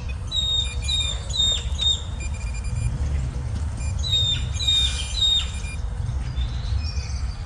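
A bird calling in two runs of short, high, quickly repeated notes, over a steady low rumble.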